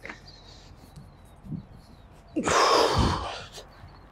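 A man's hard, noisy exhale of about a second, starting about two and a half seconds in, as he heaves a heavy rolled flatbed tarp up to his shoulders, after quieter handling of the tarp.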